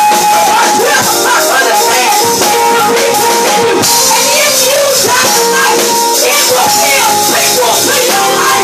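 Live band playing an instrumental groove, loud and close: drum kit with busy cymbal work, electric guitar and held keyboard notes.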